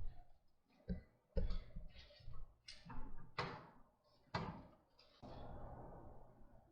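A handful of sharp knocks and thumps, about five in the first four and a half seconds, each dying away quickly, followed by a couple of seconds of steady rustling noise.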